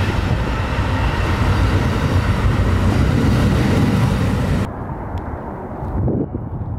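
Amtrak Superliner double-deck passenger cars rolling past at close range: a loud, steady rumble and rush of wheels on rail. About two-thirds of the way through it cuts off abruptly, leaving quieter outdoor noise with a few soft low thumps.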